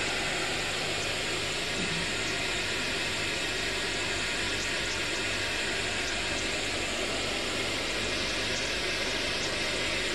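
Steady hiss of white noise with a faint low hum, unchanging throughout, from an instrumental transcommunication (ITC) noise apparatus running during a session: the noise in which spirit voices are supposed to appear, with no voice emerging.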